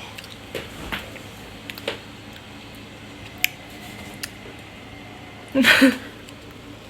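Mouth noises of someone biting and chewing frozen jelly: scattered small crunchy clicks and squishes, with a short louder vocal sound near the end.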